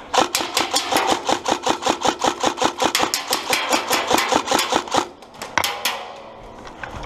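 Airsoft rifle firing a long rapid string of shots, about seven a second, for about five seconds, then a few more shots shortly after.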